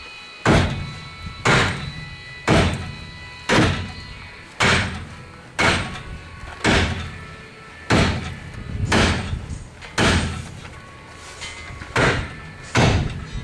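Sledgehammer beating on a seized brake caliper to free it: a steady series of about a dozen heavy metallic blows, roughly one a second, each ringing briefly.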